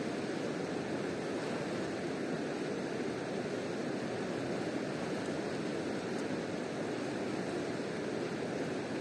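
Steady rush of river water, an even noise without breaks.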